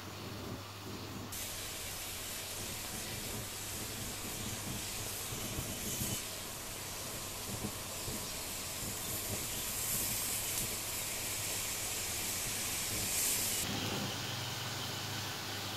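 Homemade potassium nitrate and sugar smoke bombs burning with a steady hiss. The hiss turns louder and sharper about a second in and eases back near the end.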